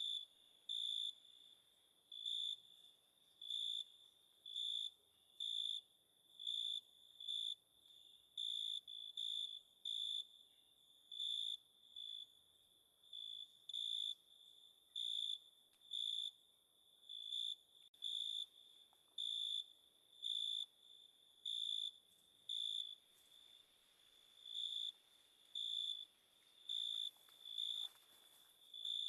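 A cricket chirping steadily at night, short high chirps on one pitch, about one a second.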